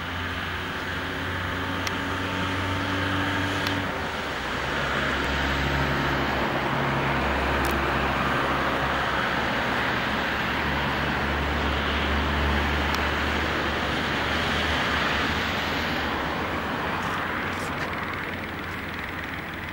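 Steady road traffic noise: the hiss of passing cars with a low engine hum beneath it that swells and fades slowly.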